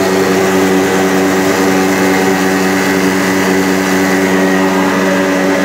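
Plastic granule-making (recycling pelletizer) machine running: a loud, steady, even mechanical hum that holds unchanged throughout.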